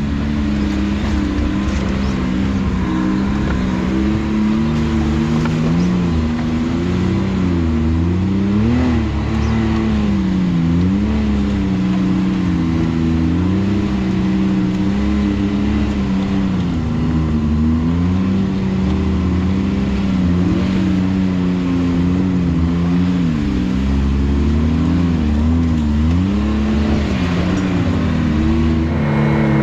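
Can-Am Maverick X3 side-by-side's turbocharged three-cylinder engine running under load on a trail, its pitch rising and dipping every second or two as the throttle is worked.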